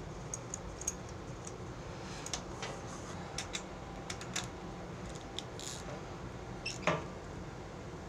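Scattered light metallic clicks and ticks, with one sharper click near the end, as a new spark plug and its socket are handled and fitted into the cylinder head of a Honda-clone generator engine.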